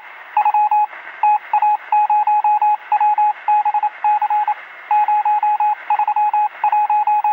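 A single-pitched electronic beep keyed on and off in rapid groups of short and longer pulses, over a steady band of radio-like hiss.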